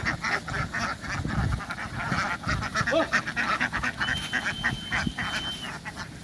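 A flock of ducks quacking, many short calls overlapping, with a thin high steady tone for about a second and a half near the end.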